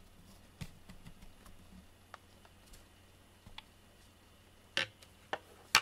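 A cat licking and grooming fur right beside the microphone: scattered soft clicks, with three sharper clicks near the end.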